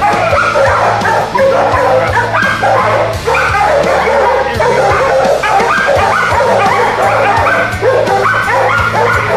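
Shelter dogs barking nonstop, many at once, their barks overlapping with no pause.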